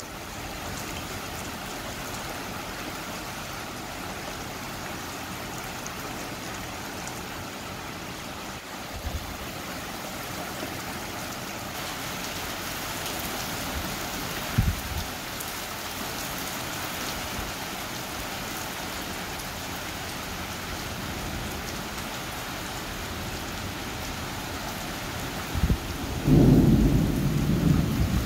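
Steady heavy rain of a thunderstorm, an even hiss throughout, with a few brief low thumps and a louder low rumble about two seconds before the end.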